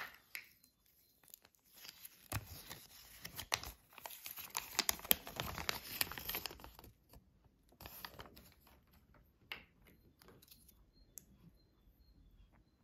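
A folded paper Kinder Surprise leaflet crinkling and rustling as it is unfolded and handled, with sharp little clicks among the rustle. After about seven seconds this thins to scattered light clicks of small plastic toy pieces being handled.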